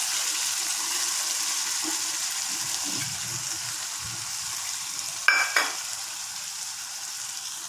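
Chicken masala sizzling in a pan as mint and coriander are stirred in, the sizzle slowly fading. Two sharp metallic clinks, a spoon striking the pan, a little over five seconds in.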